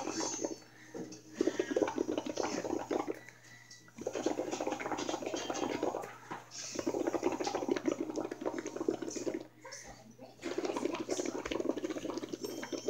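Air blown through a drinking straw into a pitcher of soapy water, bubbling and gurgling in blows of about two seconds each, with short breaks for breath between them, about five in all.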